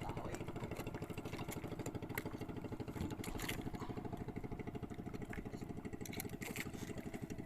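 A small boat's engine running steadily with a fast, even pulse, with scattered light clicks and knocks over it.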